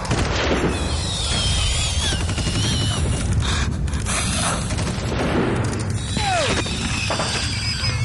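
Battle sound effects: a steady, dense rumble of distant gunfire and explosions, with high wavering whistles over it and one falling whistle about six seconds in.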